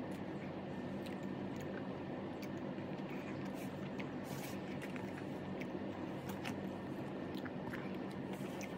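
Eating by hand: fingers squishing and mixing mutton biryani rice on a plate, with chewing and scattered small clicks, over a steady low hum.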